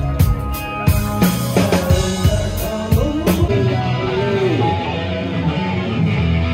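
Rock music: drum kit hits in the first second or so, then guitar playing notes that bend up and down over a steady bass.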